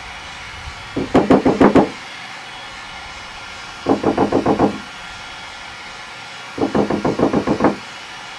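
Three quick runs of light tapping, about eight taps a second, on the GMC Sierra HD's hood panel to knock out small hail dents the heat gun has warmed. A steady blowing hiss, the heat gun running, sits underneath.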